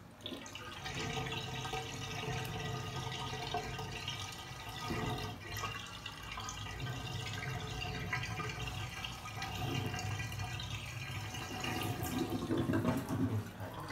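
Water running from a handheld shower head and splashing over a baby monkey and the hands washing it. The flow starts suddenly at the beginning, runs steadily, and is loudest near the end.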